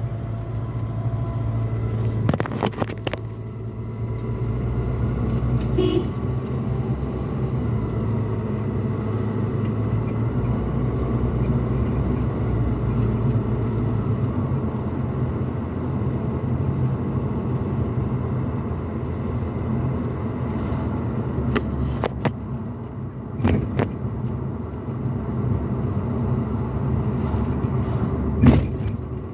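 Pickup truck cabin noise while driving: a steady low rumble of engine and road, with a few short thumps scattered through it.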